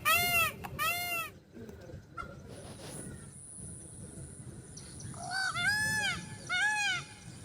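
Peacock calling: loud, nasal, arched honking calls, two in quick succession at the start, then three more after about five seconds. A faint thin high whine runs through the middle.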